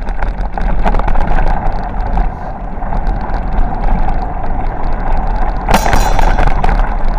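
Bicycle rolling down a gravel dirt track, a steady rumble and rattle with wind buffeting the microphone. A sharper clatter about six seconds in.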